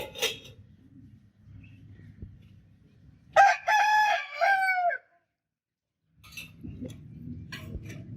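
Rooster crowing once, a loud cock-a-doodle-doo in several drawn-out notes lasting about a second and a half, a few seconds in, after a couple of short sharp calls at the start. The sound cuts off abruptly after the crow; after a short gap a low steady rumble comes in with a few faint short calls.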